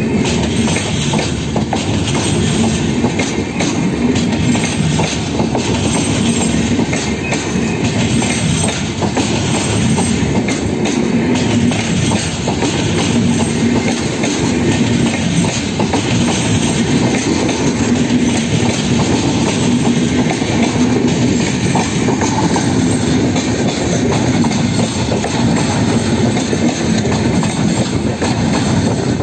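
Passenger coaches of an Indian express train rolling past close by as it departs, a steady loud rumble of wheels running over the rails with clickety-clack from the track.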